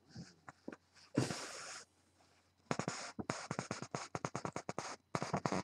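A short scraping rustle about a second in, then a rapid run of sharp clicks or taps, several a second, from about the middle on.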